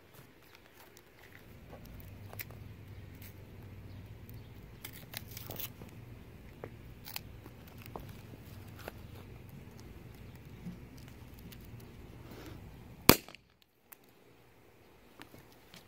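Hand-held party popper going off with one sharp bang about thirteen seconds in. Before it, a low steady hum and a few light clicks.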